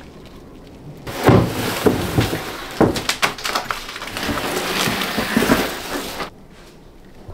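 A wooden cabinet drawer sliding on its runners, a loud scraping with repeated knocks, starting about a second in and stopping suddenly about five seconds later.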